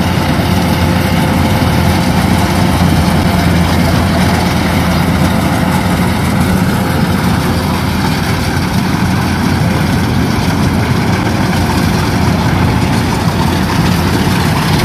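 Rice combine harvester's engine running steadily as it cuts the field, a loud, even, low hum.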